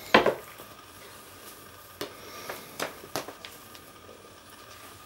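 A loud thump just after the start, then a few lighter taps and scuffs about two to three seconds in: Bengal cats pouncing and landing on a wooden floor and rug.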